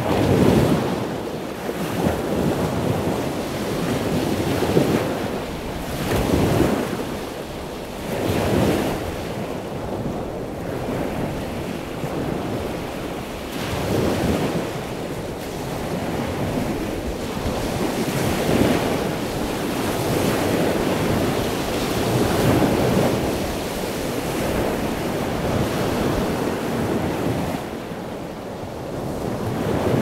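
Ocean surf on a beach: a continuous rush of breaking waves that swells and eases every few seconds.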